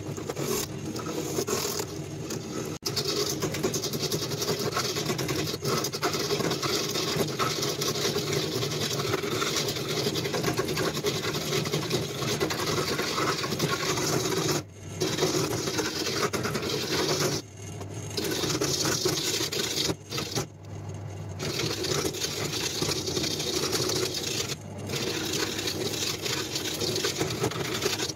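Power woodworking machine running with its motor humming steadily while the tool scrapes and cuts into wood, with a few short breaks in the second half.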